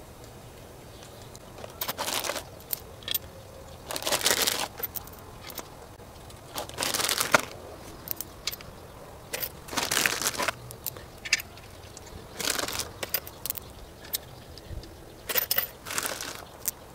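Ratchet wrench ratcheting in short bursts, about six times a few seconds apart, with scattered clicks between them, as the intake manifold bolts are run down in their tightening sequence.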